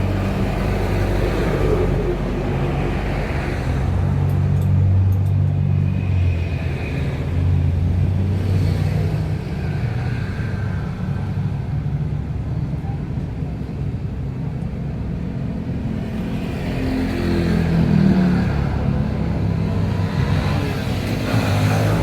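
Motor vehicle engines running with a steady low rumble that swells and fades, as of traffic going by.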